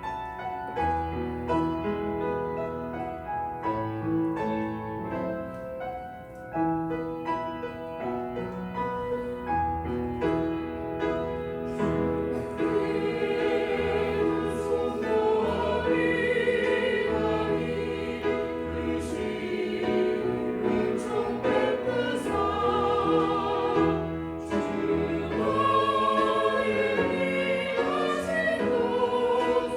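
Church choir singing a Korean hymn-anthem with piano accompaniment. The choir grows louder and fuller about twelve seconds in, with vibrato in the voices.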